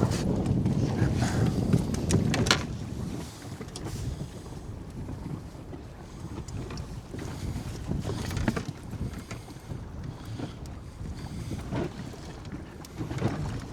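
Wind buffeting the microphone on a small boat at sea, heaviest for the first two and a half seconds, with a few scattered knocks.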